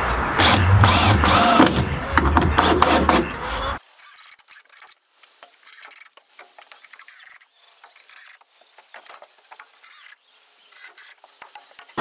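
Cordless drill running in bursts as it drives screws into wooden soffit boards. It stops abruptly about four seconds in, leaving only faint scattered clicks and taps.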